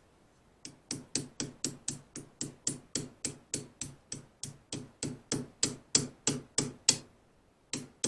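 Hammer tapping in quick, even strokes, about three a second, driving a cotter pin down through the ATV's axle nut. The taps stop briefly near the end, then start again.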